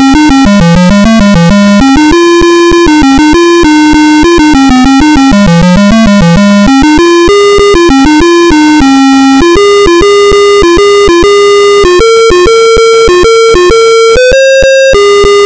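An Apple II's built-in one-bit speaker plays a buzzy, single-voice tune. The notes step up and down one at a time, with small clicks where they change.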